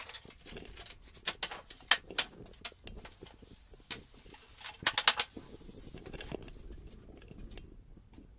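Irregular clicks and knocks of hand work with a tool or panel piece against tiles and the shower-screen base, with a quick cluster of sharper taps about five seconds in.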